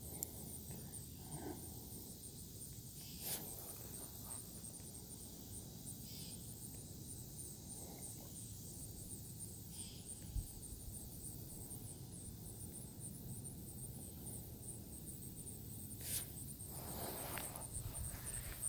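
Insects trilling in a steady high-pitched chorus with a fast pulse, over a low rumble, with a few brief faint knocks.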